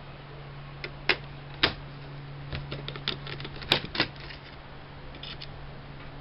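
Irregular sharp clicks and taps of small laptop parts and a tool being handled during disassembly, busiest in the middle with two loud clicks close together, over a steady low hum.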